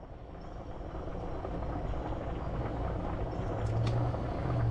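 Olive oil pouring out of a plastic bottle into a nonstick frying pan, a low glugging rush that grows gradually louder.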